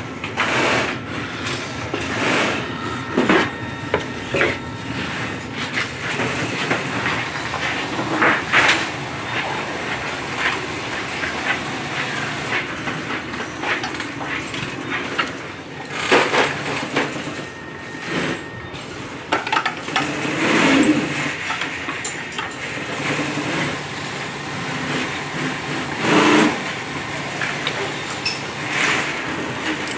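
Irregular clicks, taps and clatter of hands working with fabric, scissors and an industrial sewing machine in a workshop, with no steady stitching rhythm.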